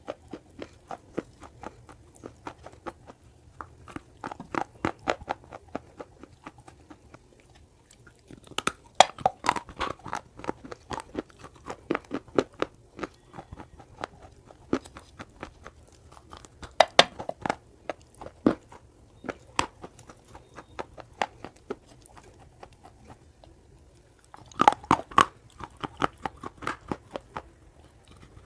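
Close-miked chewing of baked clay pot pieces coated in multani mitti: sharp, crunchy bites and chews in irregular bursts, with a few short pauses between them.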